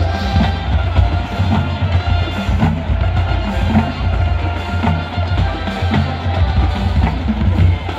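High school marching band playing a tune, horns over a steady beat of bass drum and snare drums.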